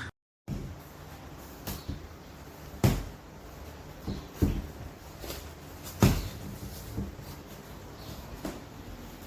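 A series of separate knocks and clunks, about seven over several seconds, the loudest two about three and six seconds in, over a low steady hum: handling noise, most likely the folding camp chair's frame being moved.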